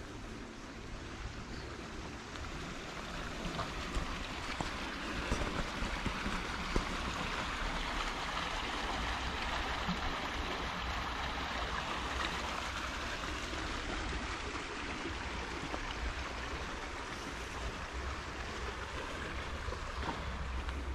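Steady rushing of running water, growing louder a few seconds in and then holding, with a low rumble underneath.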